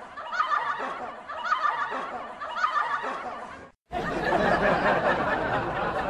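Cartoon sound-effect laughter: a short snickering laugh repeated about once a second, then, after a brief silence just before four seconds, a louder and denser stretch of laughter.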